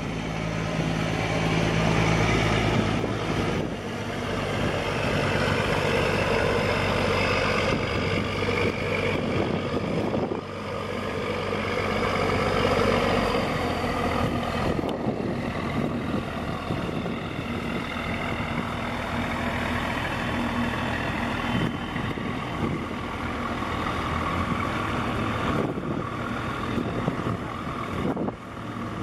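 A small fishing boat's engine runs steadily as it passes close by, over a constant rush of background noise. Its low drone changes pitch about halfway through.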